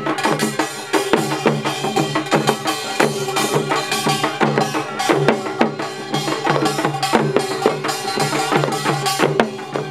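Korean pungmul folk percussion band playing: barrel drums and other percussion struck in a fast, dense rhythm, over steady ringing tones.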